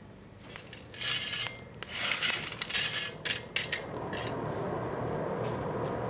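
Steel forge shovel scraping and raking through small lumps of forge coal, with clattering clicks of coal against metal. About four seconds in a steady rushing noise sets in under it.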